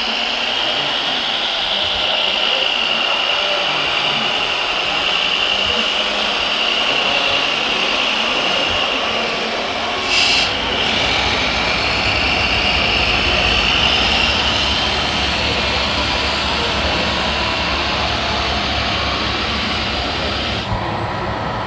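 Whine of a radio-controlled model's electric drive motor and gearbox, rising and falling, over a steady mechanical hum. A short hiss comes about ten seconds in, and a low rumble joins from about nine seconds on.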